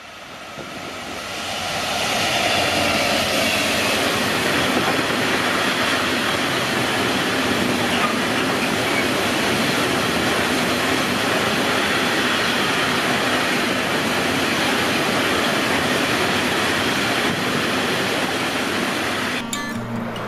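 A long freight train of covered hopper wagons passing close at speed, a steady rushing rumble and rattle of wheels on the rails that swells over the first two seconds. Near the end it cuts off abruptly to acoustic guitar music.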